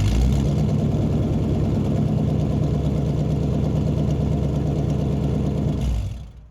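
Muscle car engine running steadily with a deep low rumble, heard in a big room. The sound fades out about six seconds in.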